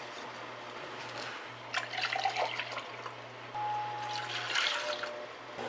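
Liquid poured from a glass measuring cup into a stainless steel saucepan, splashing and trickling in two pours, the second about three and a half seconds in, when soy sauce goes into the vinegar brine. A low steady hum runs underneath.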